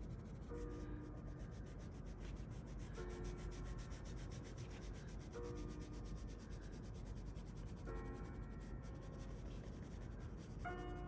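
Brown coloured pencil scratching on sketchbook paper in rapid back-and-forth shading strokes.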